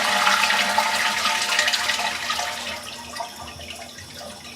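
Toilet flushing with its water supply shut off: water rushing out of the tank and down the bowl, dying away over the last couple of seconds as the tank empties without refilling.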